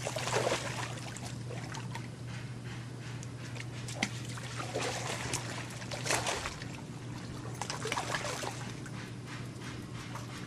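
Pool water splashing and sloshing as a man wades in carrying a person in his arms, a few irregular splashes over a steady low hum.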